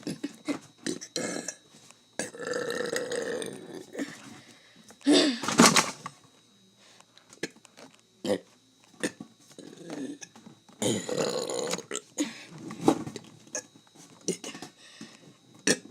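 A person burping repeatedly: a long drawn-out burp about two seconds in, a loud one about five seconds in, and another long one near eleven seconds, with short clicks in between.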